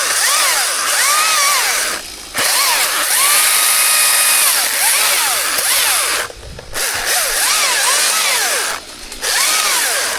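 Chainsaw running at high speed, its engine pitch rising and falling over and over as it is revved, with three short drops in level at about two, six and nine seconds in.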